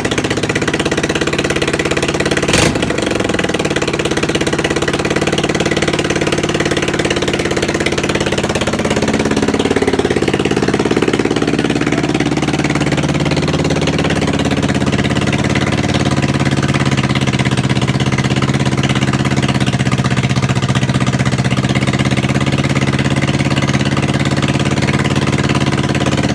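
Freshly rebuilt 1971 Honda CB350's air-cooled parallel-twin engine running at idle, now that the timing advancer, which had been fitted 180 degrees out, is set right. There is a sharp click about two and a half seconds in, and the engine speed rises and settles back around ten seconds in.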